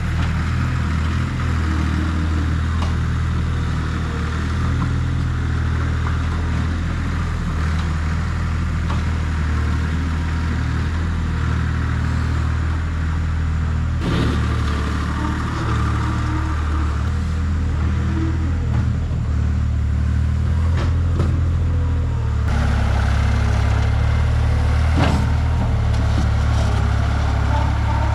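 Skid steer engine running steadily while it works, with a strong low hum that gets louder about two-thirds of the way through. A couple of short knocks are heard along the way.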